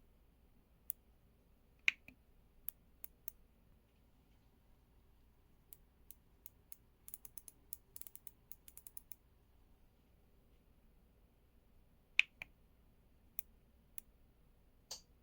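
Keystrokes on an EPOMAKER x LEOBOG K81 Pro mechanical keyboard: scattered single key presses, a quick run of typing about seven seconds in, and a few louder clacks near two and twelve seconds.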